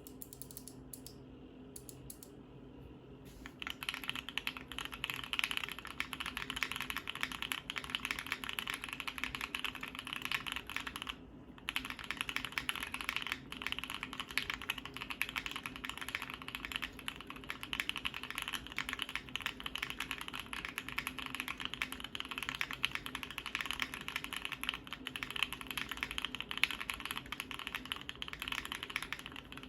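Steady typing on a Keychron Q2 mechanical keyboard with lubed and filmed NK Dry Black linear switches, a polycarbonate plate, a PE foam mod and Domikey Hush Deep keycaps: a dense run of keystrokes that starts about three and a half seconds in, with a short pause near the middle.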